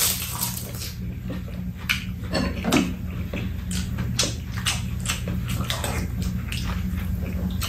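Eating sounds: wet chewing and slurping, with spoons clicking now and then against bowls, over a steady low hum.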